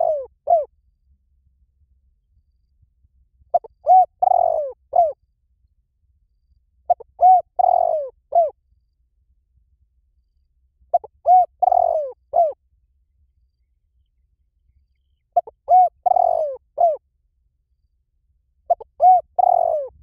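Spotted dove cooing: a short phrase of several coos, repeated about every four seconds, five times over, with the end of another phrase at the very start.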